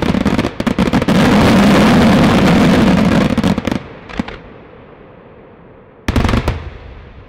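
Daytime fireworks: a dense, rapid barrage of bangs for about the first four seconds, breaking off suddenly, then a short loud burst of bangs about six seconds in.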